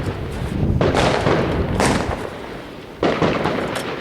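Fireworks going off: two sudden bangs, one just under a second in and one about three seconds in, each followed by a noisy tail of about a second that fades away.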